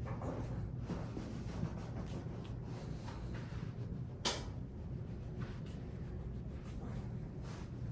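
Faint rustling of hands moving over skin and clothing during manual therapy, over a steady low hum, with one sharp click about four seconds in.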